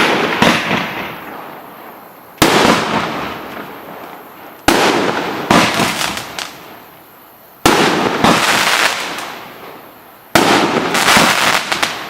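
Firework cake with 50 mm shots firing in sequence: a sharp bang every two to three seconds. Each bang is followed by a spray of smaller crackling pops that fades away.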